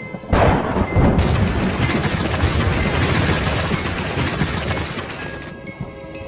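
A thunderclap from a lightning strike: a sudden sharp crack about a third of a second in, then a heavy rumble that rolls on for about five seconds and fades, over music.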